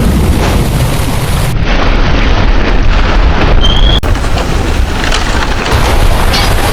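Ship-hitting-an-iceberg sound effect: a loud, continuous, heavy low rumble of noise, with a brief high squeal about three and a half seconds in.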